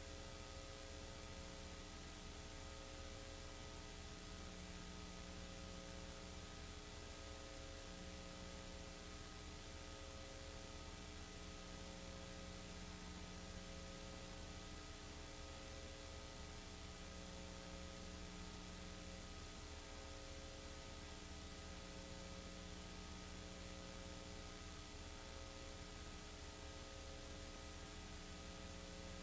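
Low steady electrical hum with hiss and a faint tone that pulses on and off every second or two: transfer noise on the soundtrack of a silent 1940s home movie, with no recorded sound.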